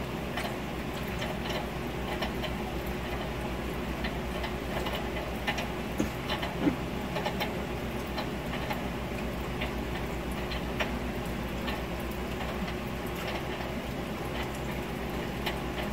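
Scattered small crisp clicks and crunches of someone chewing a salad of lettuce, cabbage and celery, over a steady low hum.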